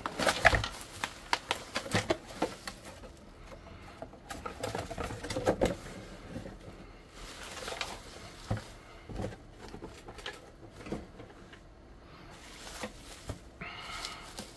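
Plastic bubble wrap crinkling and rustling as a wrapped radio is handled, lifted out of a cardboard box and unwrapped, with irregular crackles and a few soft knocks.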